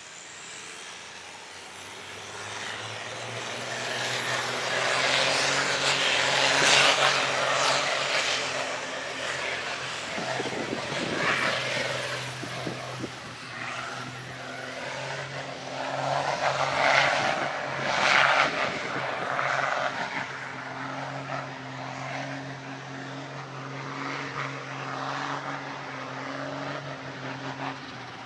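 A vehicle on the move: a steady low engine hum under a rushing noise that swells and fades twice, with a faint high whine.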